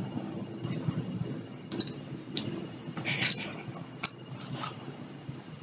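A metal dog tag on a collar clinking in a few sharp, ringing clicks as a puppy paws and climbs on the dog wearing it, with a quick cluster of clinks about three seconds in. A low rumble runs underneath.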